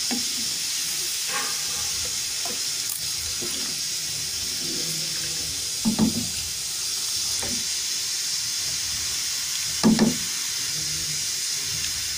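Steady hissing and sizzling of water just added to a hot pot of fried masala and mash (urad) dal, stirred with a wooden spoon. Two brief louder sounds come about six and ten seconds in.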